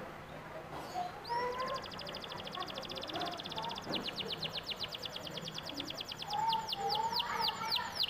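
Domestic canary singing a long rolling trill of fast, high repeated notes. The trill loosens about halfway through and slows into separate sweeping notes near the end.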